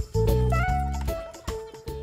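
Background music, a tune of pitched notes that grows quieter near the end.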